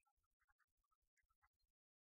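Near silence, with only very faint, rapid crackles that stop shortly before the end.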